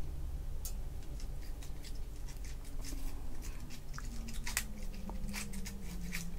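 Crushed ice in a tall plastic cup crackling and clicking as milk is poured over it, the crackles coming thicker in the second half.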